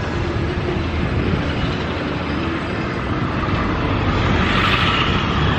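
Steady street traffic noise from passing vehicles, growing a little louder and brighter about four seconds in as a vehicle comes close.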